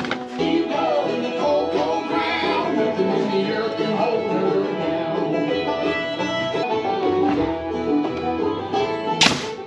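Bluegrass-style background music with banjo and plucked guitar, with a single sharp crack near the end.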